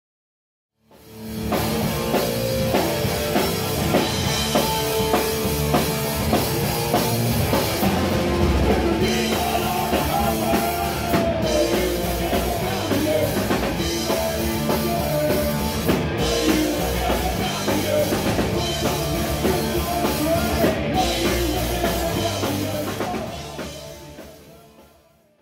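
Rock music with a full drum kit and a steady beat, starting about a second in and fading out near the end.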